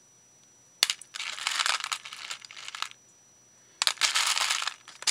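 Crinkling, rustling handling noise from craft materials being worked by hand, in two stretches: the first opens with a sharp click about a second in, the second starts near the end.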